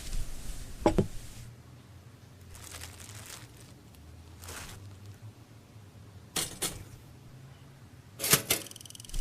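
A few scattered knocks and clicks: one sharp knock about a second in, then two quick pairs of clicks near the end.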